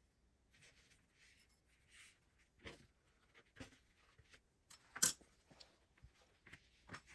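Cotton fabric being handled, smoothed and slid over a cutting mat: soft rustling, then a few light taps, the sharpest about five seconds in.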